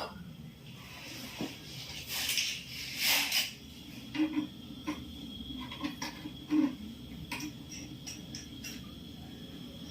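Scattered clicks, taps and short rustling hisses from hands working on parts of a refrigerator, over a low steady hum, with the two loudest hisses about two and three seconds in.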